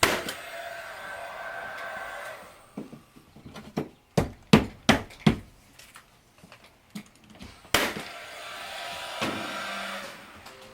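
Four sharp knocks in quick succession, typical of hammer blows on the wooden window frame, set between two stretches of steady rushing noise of a couple of seconds each.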